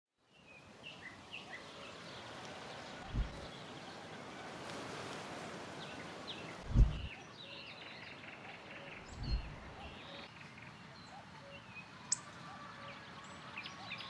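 Small birds chirping and singing over a steady rustle of wind. Three low thumps of wind buffeting the microphone come about three, seven and nine seconds in; the one near seven seconds is the loudest.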